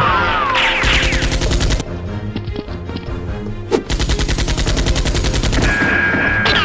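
Two long bursts of rapid automatic gunfire sound effects, one about a second in and another near the middle, over background music. The bursts are joined by falling, swooping whistle-like sweeps near the start and end.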